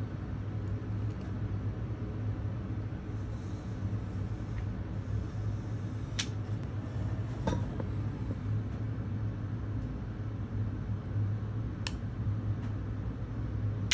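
A steady low background hum with a few short, sharp light clicks and taps from handling a phone and its plastic-backed glass screen protector as it is pressed down and its top film peeled off.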